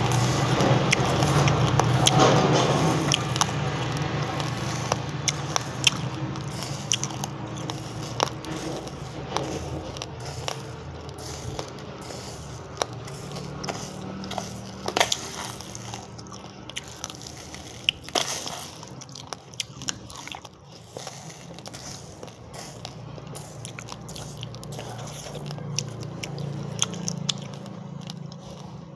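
Raw, uncooked rice grains crunched between the teeth and chewed, a dense run of small sharp cracks, loudest in the first few seconds and then slowly fading.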